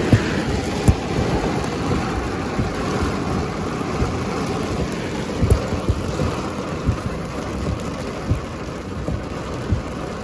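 Heavy rain pelting a car, heard from inside the cabin: a steady rushing hiss with scattered sharp thumps.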